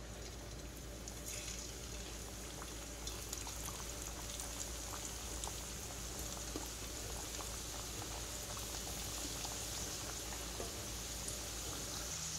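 Mini aloo samosas frying in medium-hot oil in a kadhai: steady bubbling and sizzling with many small crackles. The sizzle grows a little louder about a second in.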